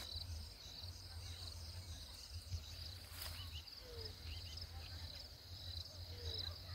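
Crickets chirping faintly in steady repeated pulses, over a low rumble.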